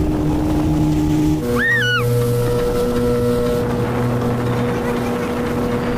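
Speedboat engine running over the rush of water and wind, its steady hum shifting to a new pitch about a second and a half in. A brief high rising-then-falling cry sounds around two seconds in.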